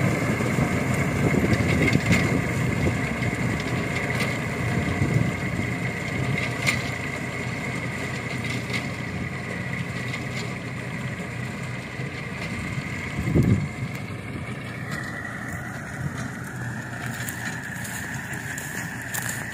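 Combine harvester running steadily while cutting mustard, a dense engine and machinery noise with a high whine and scattered clicks. A single louder thud comes about two-thirds through, the whine drops slightly in pitch soon after, and the sound grows gradually quieter.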